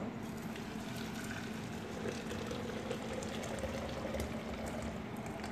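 Hot water poured in a steady stream from an electric kettle into a metal pot.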